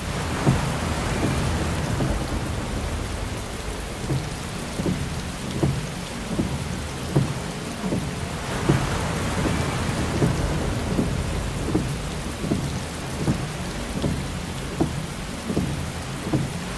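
Heavy rain falling steadily, with many irregular low knocks of big drops striking a hard surface, several a second. The rain swells louder briefly about a second in and again about halfway through.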